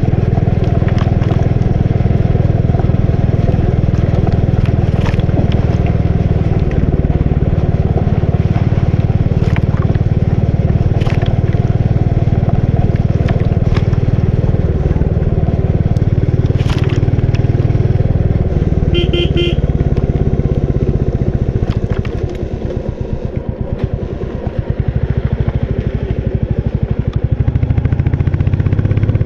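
Royal Enfield Bullet 350 single-cylinder four-stroke engine running steadily while riding, easing off for a few seconds about three-quarters of the way through and then picking up again. A short horn beep sounds about two-thirds in.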